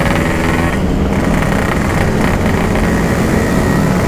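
Yamaha RX-King 135cc single-cylinder two-stroke motorcycle running steadily at cruising speed, its exhaust note coming through a standard-looking 'packing power' muffler.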